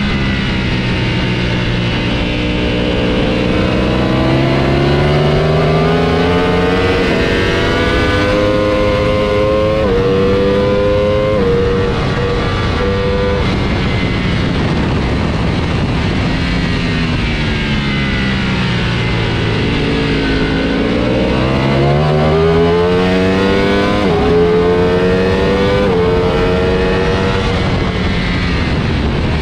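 Ducati Panigale V4 S V4 engine heard onboard at track pace. It revs up hard through the gears with quick upshifts, each a sudden drop in pitch, then the pitch falls away under braking for several seconds before it accelerates and upshifts twice more near the end. Wind rush runs underneath.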